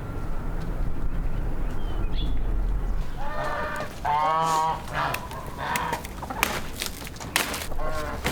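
Chicken calling in short pitched clucks, about three seconds in, a longer one about four seconds in, and another near the end, with scattered sharp knocks and clicks between the calls.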